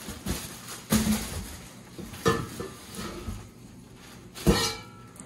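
Metal exhaust pipes and mufflers knocking together as they are handled and lifted out of their box, with three sharp clanks, the last and loudest near the end ringing briefly, amid rustling of plastic wrapping.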